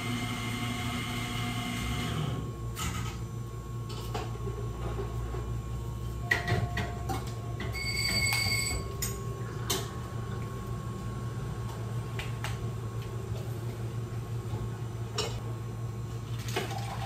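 Cafe counter work: scattered clicks and knocks of cups and lids being handled over a steady low machine hum, with a short electronic beep about eight seconds in.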